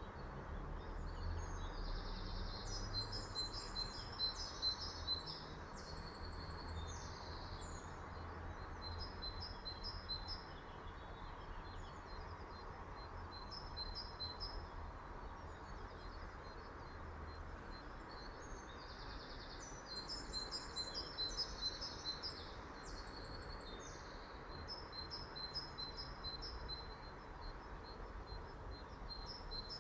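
A small songbird singing in two long bouts of varied high chirps and trills, each trailing off into a run of short repeated notes, over a steady low background rumble and hiss.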